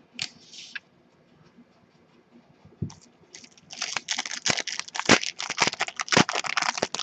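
Foil trading-card pack being crinkled and torn open by hand: a short rustle at the start, then a dense run of crackling and crinkling from about halfway in.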